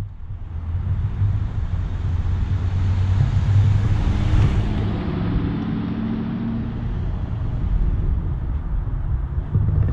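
2006 Ford Mustang GT's 4.6-litre SOHC V8 running as the car drives by, swelling in over the first second. A broad hiss rides over the engine and is loudest about halfway through.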